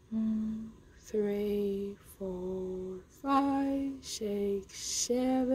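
A person's voice counting out seconds slowly, each number drawn out into a long, sing-song syllable, about one a second.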